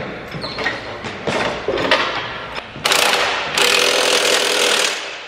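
Impact wrench running in two runs, the second about a second and a half long, tightening the bolts that mount a John Deere ExactEmerge planter row unit to the toolbar. Scattered metal clanks and ratchet clicks come before it.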